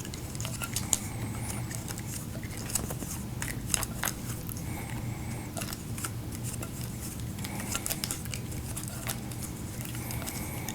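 Teflon thread-seal tape being wound round a compressor's threaded fitting: faint crinkling with scattered small clicks from handling the parts, over a steady low hum.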